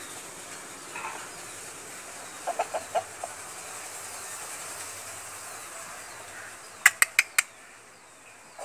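Shamo rooster giving a quick run of five short, low clucks about two and a half seconds in. Near seven seconds come four sharp clicks in quick succession, the loudest sounds, over a steady background hiss.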